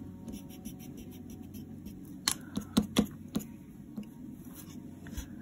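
Quiet handling noise of a kneaded eraser being worked over drawing paper to clean it up, with a few sharp clicks about two to three and a half seconds in.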